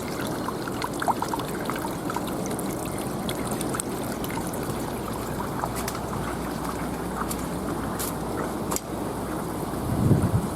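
Water running and trickling steadily, with scattered small clicks and a brief low thump near the end.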